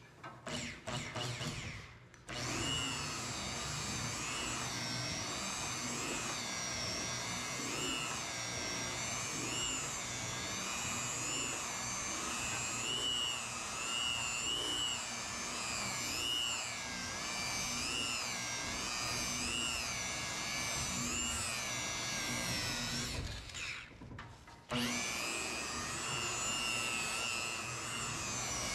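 Electric rotary polisher with a foam pad buffing a car's painted panel: a motor whine that wavers up and down in pitch as the pad is worked. It starts in a few short spurts, runs steadily, stops for about a second and a half near the end, then starts again.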